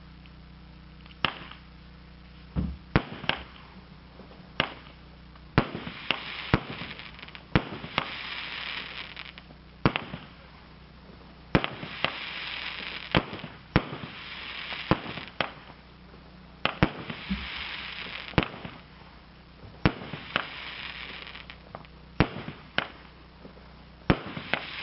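A multi-shot aerial firework cake firing, the Shogun "Fire in the Night" with its brocade-crown and colour-star shots. Sharp launch and burst reports come every second or so, irregularly spaced, and several bursts are followed by a second or two of high hiss.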